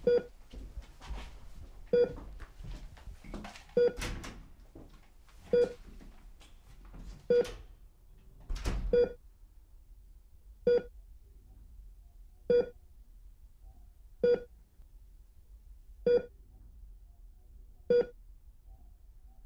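Hospital patient monitor beeping its pulse tone, a short mid-pitched beep repeating evenly about every 1.8 seconds, a slow heart rate. Through the first half, rustling and shuffling sound under the beeps, loudest around four and nine seconds in.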